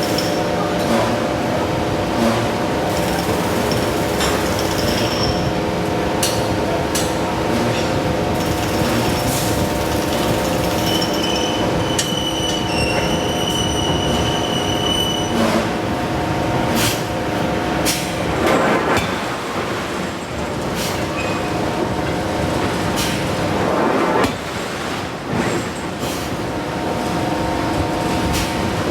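Steady industrial machinery hum in a steel forging shop, with several even tones, likely from the hydraulic hammer's power unit, and scattered short metallic clanks and knocks.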